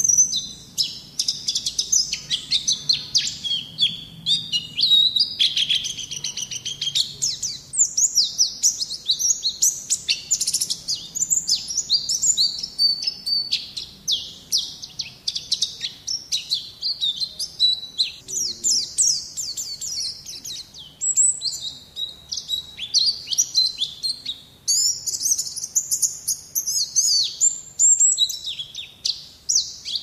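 White-eye (Zosterops, the 'pleci ngalas' type) singing a long, fast twittering song of high, quick sweeping notes, with only brief pauses.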